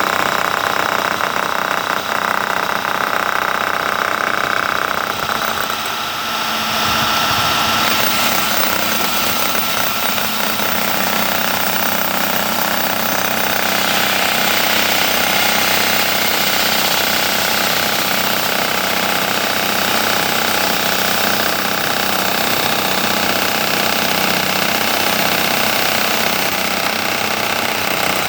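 Concrete wall saw cutting through a concrete wall, its diamond blade giving a loud, steady grinding noise over a mechanical drone. A thin high whine sits on top for the first several seconds.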